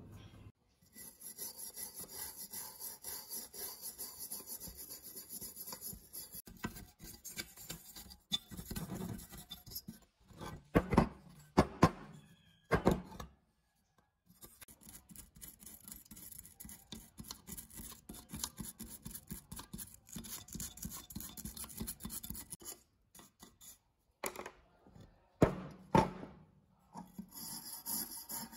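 Small hand wire brush scrubbing rust off the metal base of an old hurricane lamp in rapid back-and-forth strokes. A few louder knocks come about a third of the way in and again near the end, with a short pause in the scrubbing between them.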